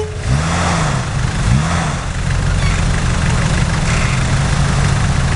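Jeep Cherokee XJ engine revving up and falling back a few times in the first two seconds as it crawls over rough ground, then running at a steady speed.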